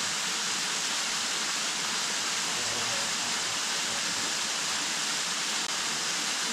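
A waterfall's steady rushing water, an even hiss with no breaks.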